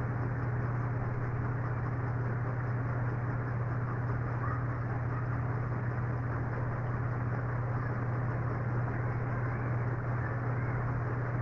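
Steady low hum over a constant background hiss, unchanging throughout, with no speech.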